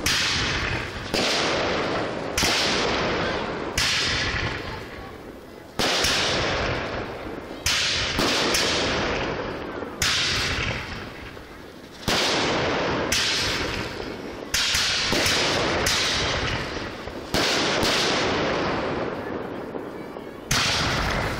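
Display fireworks going off in quick succession: about fifteen sharp bangs, roughly one every one to two seconds, each fading away before the next.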